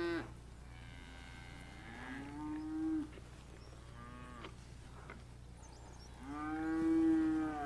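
Cattle mooing: three calls, one about two seconds in, a short one around four seconds, and a longer, drawn-out one starting near six seconds.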